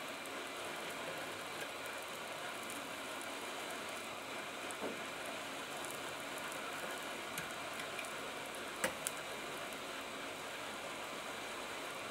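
Hot air gun of a YAOGONG 8878D rework station blowing a steady airflow hiss at fan speed 5, heating a surface-mount chip to melt its solder for desoldering. A few small clicks come through, two close together about three-quarters in.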